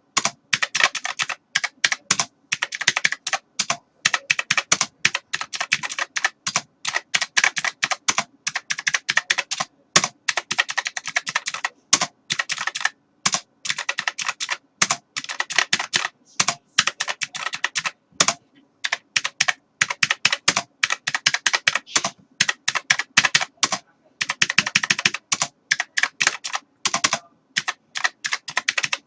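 Computer keyboard typing: rapid runs of key clicks with short pauses between bursts.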